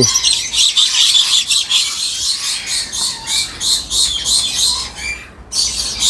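Lories screeching, a rapid run of short, high-pitched calls at about five or six a second, with a brief pause near the end.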